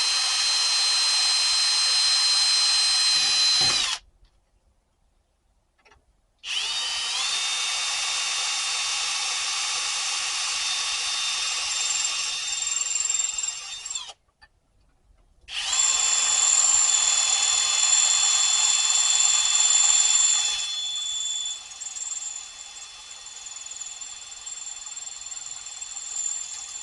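Electric drill running in three bursts as it drills out aluminum rivets with a small bit. Each run opens with a short rising whine as the motor spins up, and the last run turns quieter for its final few seconds.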